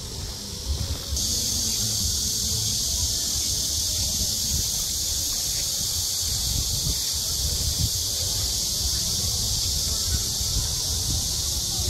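Cicadas buzzing in a steady, high, shrill chorus that comes in about a second in, over a low rumble.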